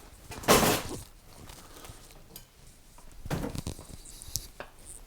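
Hand tools being picked up and handled at a repair bench: a loud clatter about half a second in, then a few light clinks and knocks.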